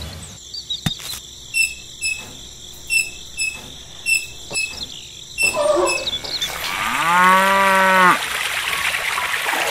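A cow moos once, a single drawn-out call about seven seconds in, over the steady hiss of water pouring from a small spout. Before that, a run of short high chirps and clicks comes about twice a second.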